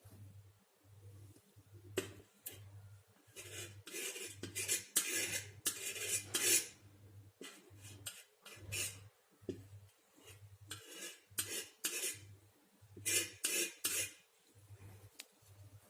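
Metal painting knife scraping and dabbing acrylic paint onto a board canvas: a couple of light clicks, then two runs of short scraping strokes.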